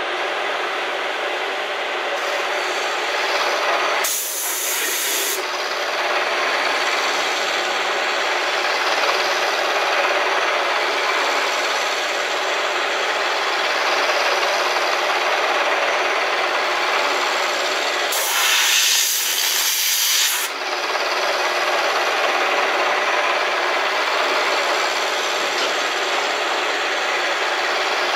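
CNC-converted Bridgeport milling machine running under program, its cutter giving a steady rasping cutting noise. Two bursts of hiss break in, about four seconds in and again near two-thirds of the way through.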